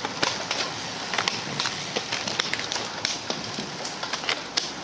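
A group of road cyclists setting off and riding past, with a steady rushing noise and many sharp, irregular clicks of shoe cleats snapping into pedals and gears shifting.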